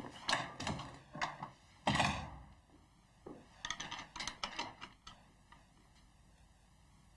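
Footsteps walking away, then a door shutting with a thud about two seconds in; a few lighter knocks follow between about three and five seconds.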